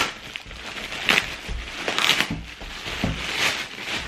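Clear plastic wrapping crinkling and rustling as it is handled and slit open with a box cutter, with a few louder crackles.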